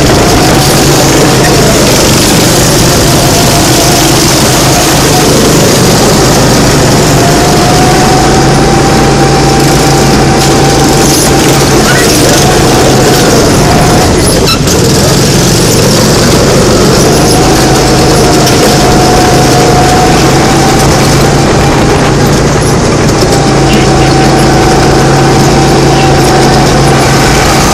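Go-kart engine running loud and close at high revs as the kart is driven round the track, over a heavy rush of noise. Its steady pitch drops away briefly about halfway through and dips again later, as the throttle comes off for corners.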